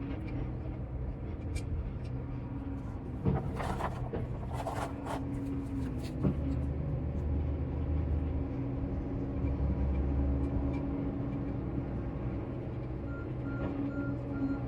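An engine runs steadily. There is a sharp knock about 3 seconds in and another about 6 seconds in, and a short hissing rustle between them.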